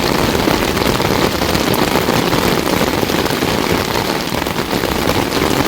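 Heavy rain falling steadily on a tent.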